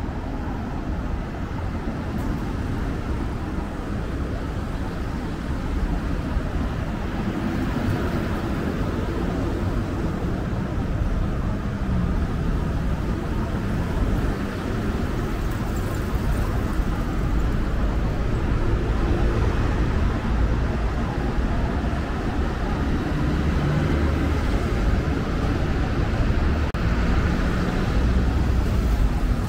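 Road traffic on a busy street: a steady rumble of passing cars that grows a little louder toward the end.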